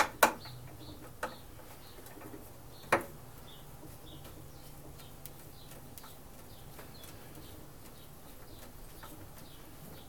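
Hand tools working fasteners on a Briggs & Stratton lawn mower engine: a few sharp metallic clicks and knocks in the first three seconds, the loudest about three seconds in. A faint, even ticking runs underneath.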